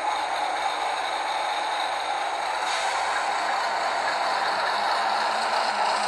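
Model locomotive's ESU LokSound 5 decoder playing a steady diesel running sound through the model's small speaker, with a change in its higher sound about halfway through and a slow rise in level.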